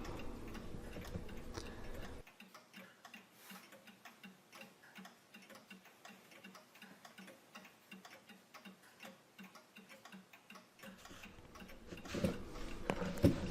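A clock ticking steadily and faintly, a quick even tick. Handling noise from the workpiece comes before the ticking and returns near the end with a few sharp knocks.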